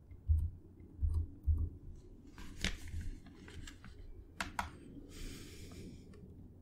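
Computer keyboard and mouse in use: three dull keystroke taps, then a few sharper clicks, including a quick pair past the middle.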